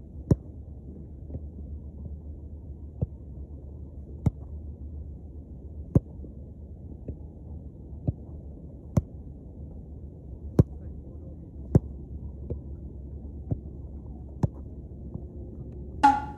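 A soccer ball being kicked and trapped in a passing drill: sharp thuds about every one to one and a half seconds, some loud and close, some fainter from the far player, over a steady low rumble of wind on the microphone. A short burst with a held tone comes near the end.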